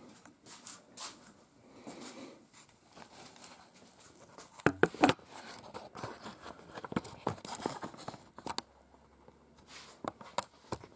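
Handling noise from a camera being carried and turned by hand: scattered light clicks, knocks and rustling, with two sharp knocks about halfway through.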